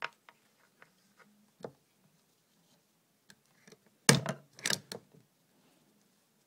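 Desktop stapler pressed shut through folded ribbon: two loud clacks about half a second apart, about four seconds in, with a few small clicks of handling before.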